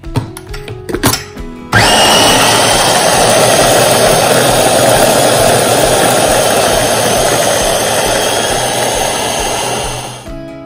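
Small electric food chopper grinding soaked chana dal with spices into a coarse vadai paste. A few clicks as the motor head is fitted, then about two seconds in the motor starts with a loud, steady grinding that stops shortly before the end.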